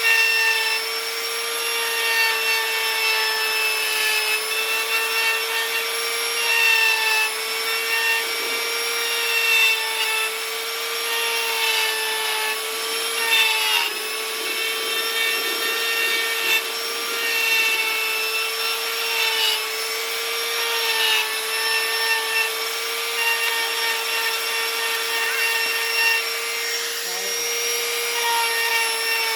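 Electric rotary carving tool running at a steady high-pitched whine, its bit grinding and scraping into wood, with pitched rings that come and go as the bit bites.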